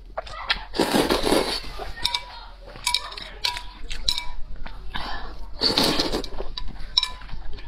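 Close-miked eating: slurping up thin strands from a bowl of broth, once about a second in and again about six seconds in, with chewing and a few light clicks between.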